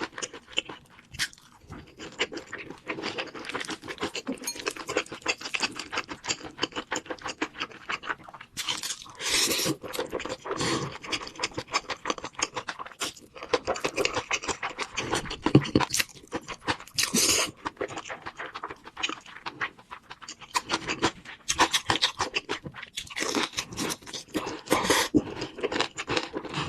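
Close-miked eating: dense, irregular crunching and wet chewing, with mouth noises.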